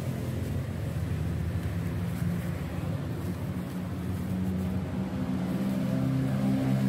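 Street traffic: a motor vehicle's engine running close by with a steady low drone, growing louder near the end.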